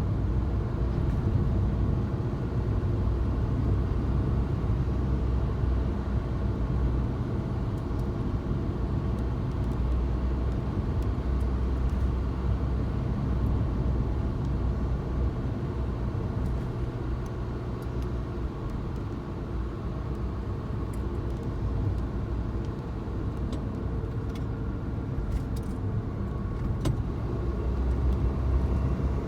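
Suzuki Jimny driving along: a steady, low engine and road rumble that eases a little midway and rises again near the end.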